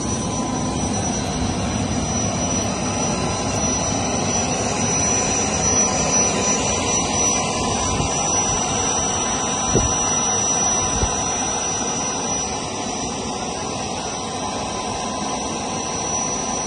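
Steady jet engine noise: an even rush with a thin, high whine held on one note, and a short knock about ten seconds in.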